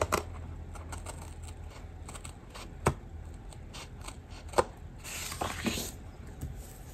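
Scissors snipping through a paper sticker to trim it at the page edge: a run of small cuts and clicks, with two sharper snaps about three and four and a half seconds in, then a short rustle of paper.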